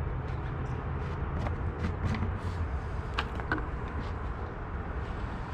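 A vehicle engine idling steadily, a low hum, with a few light clicks and knocks scattered over it.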